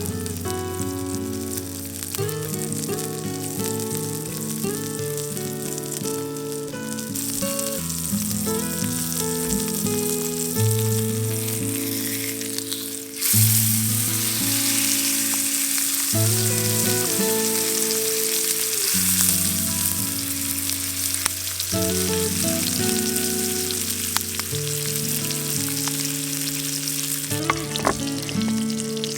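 Pork belly sizzling as it fries over a campfire, a steady hiss that gets louder about halfway through, under background music with a moving melody.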